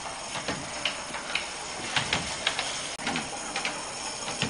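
Gas-fired live-steam garden railway locomotive running slowly: a steady steam hiss with irregular light clicks and ticks, about one or two a second.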